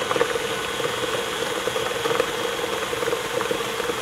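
Electric hand mixer running steadily with a light rattle, its beaters working through a thick batter.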